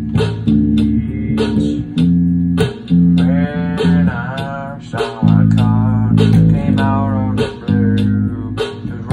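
Demo recording of a guitar-band song: a low bass line under a beat of sharp hits about twice a second, with a wavering melody line coming in about three seconds in.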